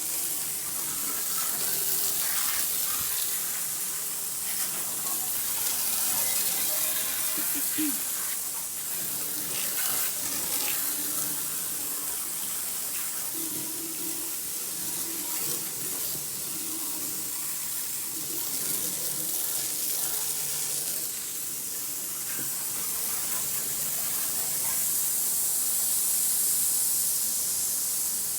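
Water running steadily, as from a tap into a sink.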